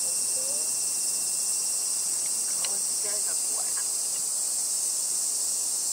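Steady, high-pitched drone of an insect chorus, with a few faint, brief pitched sounds about halfway through.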